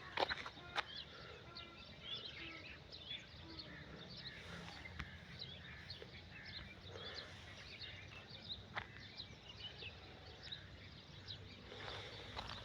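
Dawn chorus of many small birds chirping faintly and continuously, with a few sharp knocks about a second in and near nine seconds.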